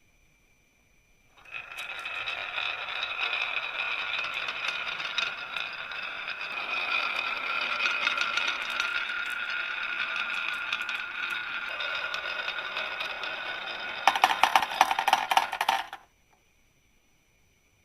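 Marbles rolling down a wooden marble-run track with a steady rolling hum, ending in a quick burst of clattering clicks about two seconds before the sound stops.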